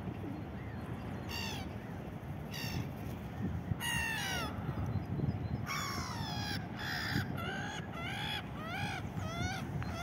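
Black-headed gulls calling with harsh, scattered cries that come faster in the second half, about two a second.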